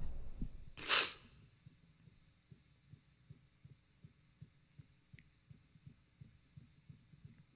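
A singer's single sobbing breath into a close microphone about a second in, as she breaks down crying. After it there is near quiet with faint low thuds, about two or three a second.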